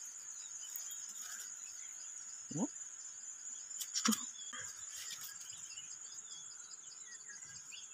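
Steady high-pitched chirring of insects, with a short rising squeak about two and a half seconds in and a faint click about four seconds in.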